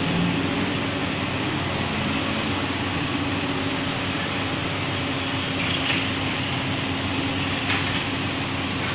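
Diesel engine of a Komatsu crawler excavator running with a steady hum while it works its boom hydraulics, with a couple of faint clicks about six and eight seconds in.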